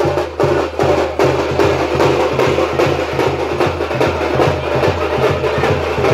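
Folk frame drums beaten hard in a fast, steady rhythm, the typical accompaniment to a tiger dance.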